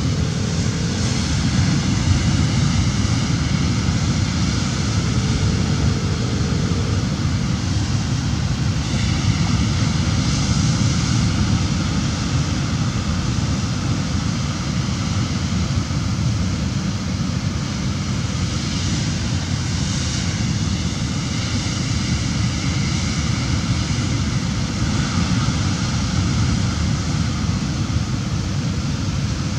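Heavy sea surf breaking and washing over rocks: a steady, deep rush of noise.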